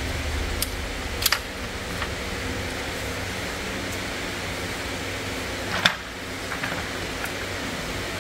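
Plastic intake manifold being lowered onto the engine and seated by hand: several sharp clicks and knocks of plastic against the engine, the loudest about six seconds in, over a steady fan-like hiss.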